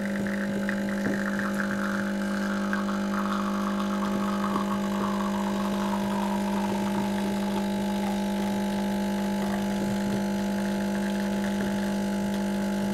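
Delonghi Dedica Maestro Plus espresso machine's vibratory pump humming steadily while it pulls an espresso shot, with a higher rushing sound that slowly falls in pitch over the first half.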